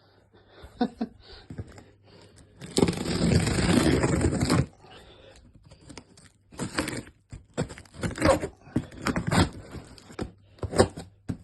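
A cardboard parcel being opened: a long rip of packing tape about three seconds in, then a run of short scrapes and rustles of cardboard.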